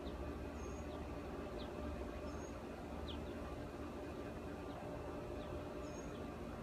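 Steady low hum of a motorized zip-track exterior shade as it lowers its screen, with short high bird chirps every second or so.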